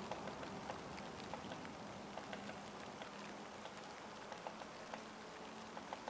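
Woodpecker pecking at tree bark: a run of short, irregular taps, several a second, over a steady faint hiss.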